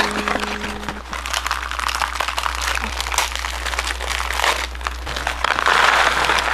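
Plastic snack bag of Gorae-bap crackers crinkling as it is handled and opened: a continuous crackling rustle.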